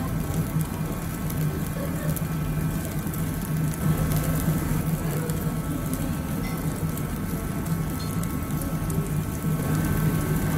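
Steady restaurant room noise: a constant low hum under a soft hiss, around a tabletop charcoal grill with meat cooking on it.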